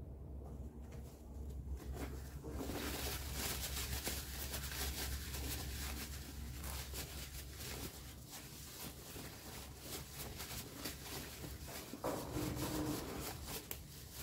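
Paper towel rustling and rubbing against apple skin as apples are wiped, a crackly scrubbing that starts a couple of seconds in and carries on, with a louder stretch near the end. The towel is wiping off the sticky film that forms on the apples after their wax is melted off.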